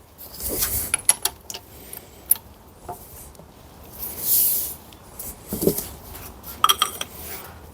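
Metal tools and parts being handled in a workshop: scattered clinks and knocks, a scraping rub about four seconds in, and a quick cluster of metallic clinks near the end.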